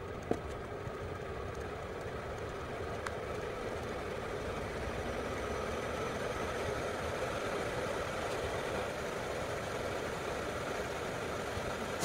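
Vevor 5 kW diesel air heater running steadily, its fan and burner getting gradually louder as its output is stepped up from level 3 to level 6. A short click sounds about a third of a second in.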